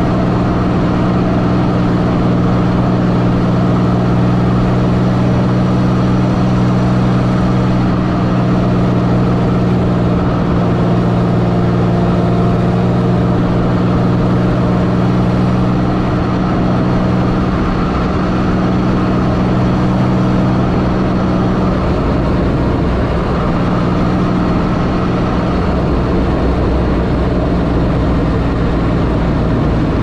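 Pontiac Fiero's swapped-in supercharged 3800 V6 running at a steady engine speed while the car is driven, with road rumble underneath. About three-quarters of the way through, the engine note shifts and wavers as the speed changes, then settles again.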